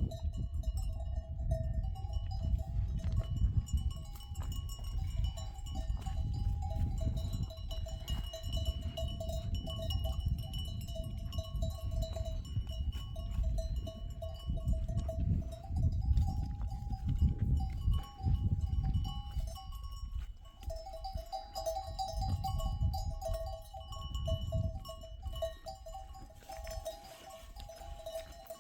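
A flock of goats and sheep calling almost without a break, over a steady low rumble.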